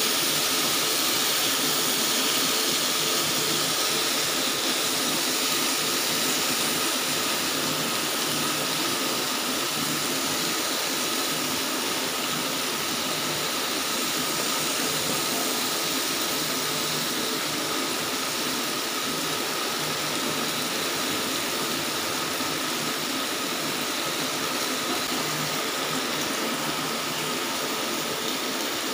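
Chicken, zucchini and mushrooms sizzling on a grill pan over a portable butane gas stove: a steady, even hiss.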